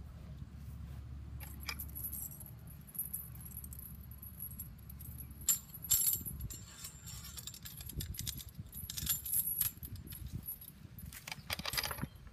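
Steel chains jingling and clinking against steel T-posts as the posts are worked by hand, in scattered runs of small metallic rattles, with the loudest clanks about six seconds in and again near the end.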